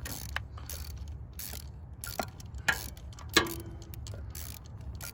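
Ratchet wrench clicking in short, uneven strokes as a spark plug is loosened and backed out of the engine's cylinder head.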